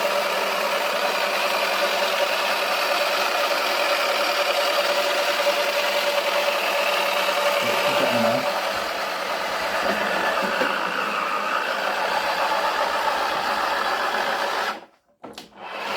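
Toy washing machine's small electric motor running steadily with a whine, spinning its drum with a detergent dispenser ball inside. The pitch shifts about ten seconds in, and the sound cuts out for about a second near the end before resuming.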